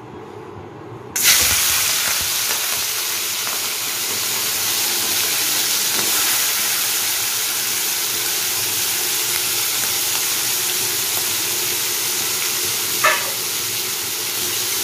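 Raw prawns sizzling in hot oil in a kadai: the sizzle starts suddenly and loud about a second in, as they go into the oil, and keeps up steadily as they fry, the water from the prawns spitting in the oil.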